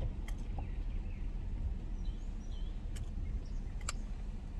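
Steady low rumble of an idling car, heard from inside the cabin, with a few faint clicks and some faint bird chirps.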